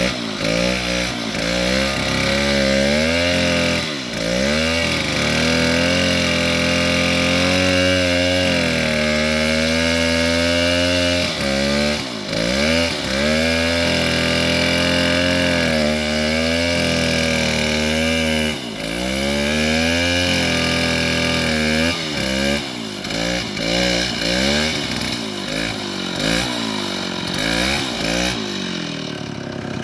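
Bulldozer engine running under varying load, its pitch rising and falling: held high for long stretches, dipping sharply a few times, then swinging quickly up and down near the end.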